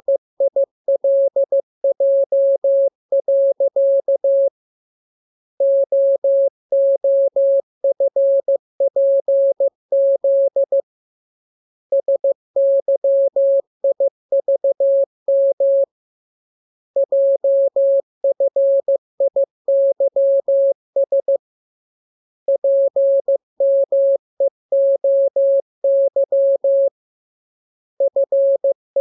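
Morse code sent as a single steady mid-pitched beep, keyed on and off in dots and dashes. The characters come in runs of a few seconds each, separated by pauses of about a second.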